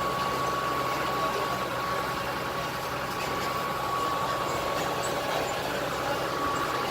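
A vehicle engine running steadily, with a thin steady whine above it that fades out near the end.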